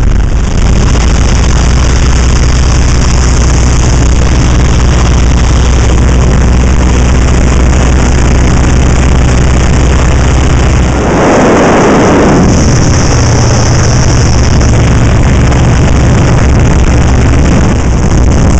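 1940 Waco biplane's engine and propeller running steadily under loud wind rush in the open cockpit. About eleven seconds in there is a brief louder rush, after which the engine note changes.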